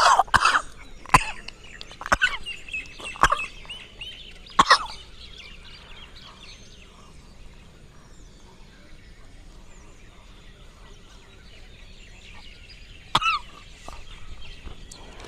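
A person making short throaty gagging and hawking sounds while drawing a sutra neti cord through the nose and throat. There are several sharp bursts in the first five seconds and one more near the end, with quiet between.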